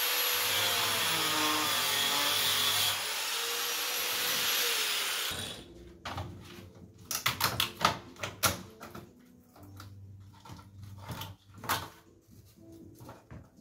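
Angle grinder running and cutting into the plastic housing of a third brake light for about five seconds, its pitch dipping and recovering under load, then stopping suddenly. After it, a run of sharp cracks and clicks as the cut plastic housing is pried open by hand.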